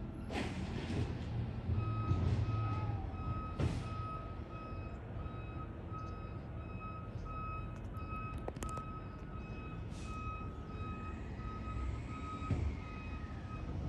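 Garbage truck's reversing alarm beeping in a steady run at one high pitch, starting about two seconds in and stopping just before the end, over the low running of the truck's diesel engine. A few short sharp noises cut in, the loudest just after the start.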